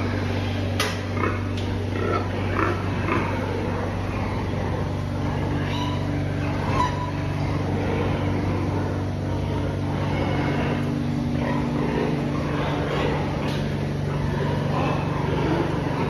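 Pigs in metal stalls grunting now and then over a steady low machine hum, with a couple of sharp knocks about a second in.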